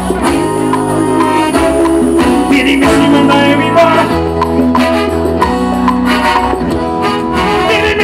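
Live forró band playing: accordion and keyboards holding chords over a steady bass line and percussion beat, with a singer.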